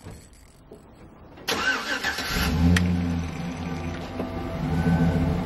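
Pickup truck engine starting: a sudden burst about a second and a half in as it cranks and catches, then running steadily.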